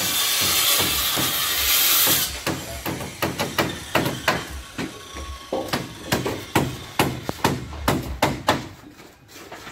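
A loud steady hiss for about the first two seconds, then a run of hammer blows on timber, about three a second, while the joglo's wooden roof frame is being built.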